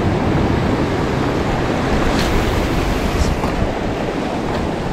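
Ocean surf washing over a rock shelf, a steady rush of breaking waves, with wind buffeting the microphone.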